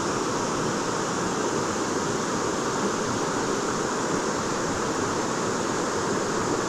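Steady rush of a river's flowing water.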